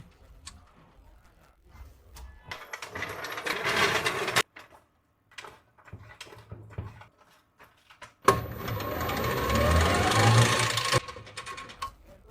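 E-rickshaw drive motor and gearbox whirring in two spells, the first building up over about two seconds and cutting off suddenly, the second starting sharply and running about three seconds with a whine that dips and rises in pitch. This is the gearbox noise fault of the rickshaw.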